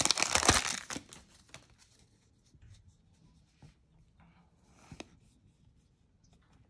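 Foil wrapper of a baseball card pack crinkling as it is torn open, loud for about the first second. After that, only faint rustles and soft clicks of the cards being handled.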